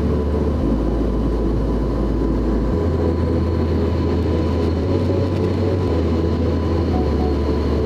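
Steady airliner cabin noise from a window seat beside a wing-mounted jet engine: a constant low engine drone under the rush of airflow, with faint steady whines.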